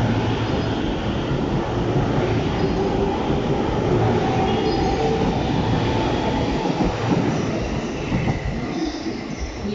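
Electric commuter train running along a station platform: a steady rumble of wheels and motors with faint squeals, dying away over the last couple of seconds.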